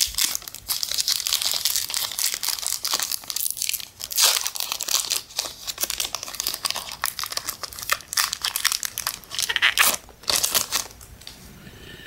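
Pokémon booster pack wrapper crinkling and tearing as it is opened by hand. The crackling stops about a second before the end.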